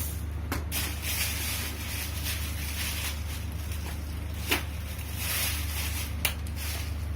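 Steady low machinery hum in the background, with hissy handling noise and three sharp clicks, about half a second, four and a half and six seconds in, as the LED fitting's wiring is connected.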